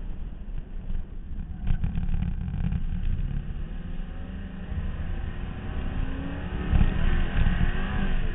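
A 2001 Cadillac Seville's Northstar V8 driven hard on an autocross course under heavy low wind and road rumble. The engine note rises and gets louder about six seconds in as the car accelerates.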